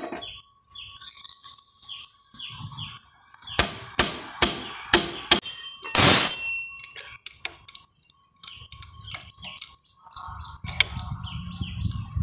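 Metal tools clinking against an engine, then a run of about five sharp metallic knocks and a louder one about six seconds in, as a spanner and special tool are worked on the rotor oil filter nut of a Bajaj Discover motorcycle engine to loosen it.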